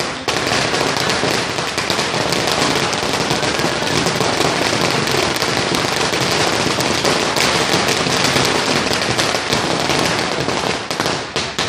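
A string of firecrackers going off in a rapid, dense crackle of pops that eases off slightly near the end.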